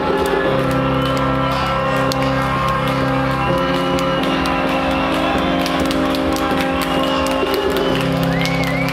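Techno from a DJ set played loud over a club sound system, with held synth tones and a steady ticking hi-hat. A high sliding tone comes in near the end.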